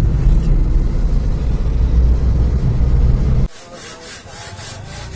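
Steady low road and engine rumble heard inside a moving car's cabin, cut off abruptly about three and a half seconds in. After that comes a much quieter background with a few faint rustles.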